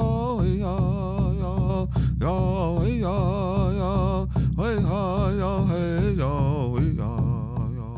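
A voice singing with a wavering pitch over a steady low accompaniment; the song begins to fade out near the end.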